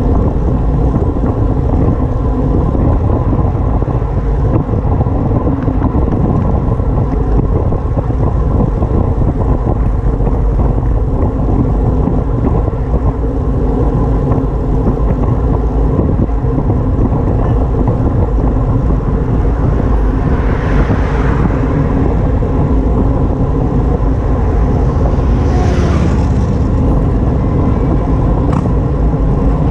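Steady loud rush of wind and road noise from moving along a road. Two brief hissing swells come about two-thirds of the way through and again a few seconds later.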